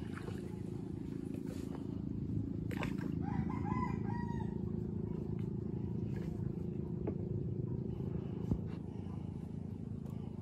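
A small boat motor running steadily, with a rooster crowing once about three seconds in.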